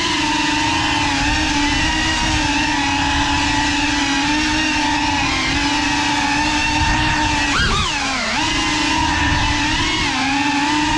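GEPRC Cinelog35 cinewhoop drone's brushless motors and ducted propellers whining steadily in flight, with a quick rise and fall in pitch about eight seconds in as the throttle is punched and let off.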